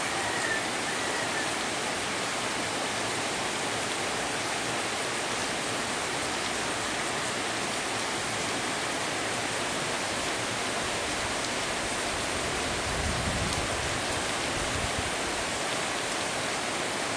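Steady rain falling, an even hiss. A faint high chirp sounds near the start, and a low rumble swells briefly about 13 seconds in.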